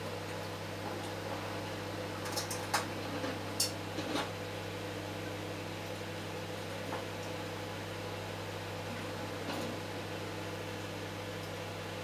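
Microwave oven running at 700 watts with 400-grit silicon carbide inside: a steady low hum from the oven with its fan noise. A few sharp clicks come between about two and four seconds in, and one more near the end.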